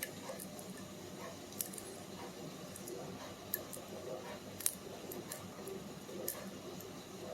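Faint scraping and scattered small clicks of a dimple pick working the pins of a pin-in-pin dimple lock under tension, with one sharper click about two-thirds of the way through.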